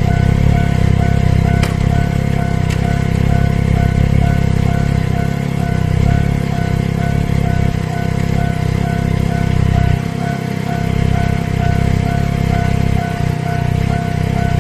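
Japanese level-crossing alarm ringing steadily, its electronic bell tone repeating evenly several times a second, over a continuous low rumble.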